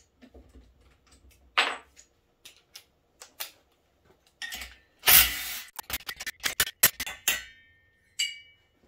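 Cordless impact driver with a 12 mm socket hammering briefly, about five seconds in, as it breaks loose a cylinder-head bolt. Around it, scattered metal taps and clicks, and near the end a quick run of clicks and a couple of short metallic clinks as the loosened bolts are handled and set down.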